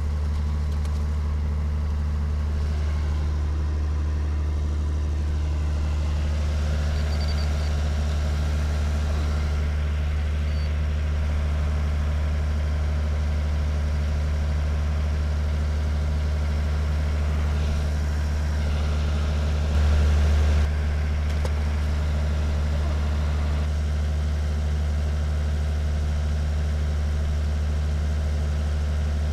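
A steady low mechanical hum, like an engine idling, with a fainter higher drone over it; it swells briefly about twenty seconds in.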